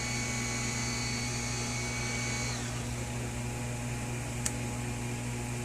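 Turbine Wash mini washing machine's motor running steadily, its agitator churning a batch of dishwashing liquid mixture; a high whine drops away about halfway, and there is one sharp click near the end.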